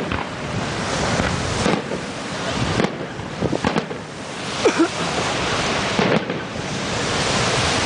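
Fireworks show: aerial shells bursting in a string of bangs spread over several seconds, over a continuous hiss of crackle and rumble.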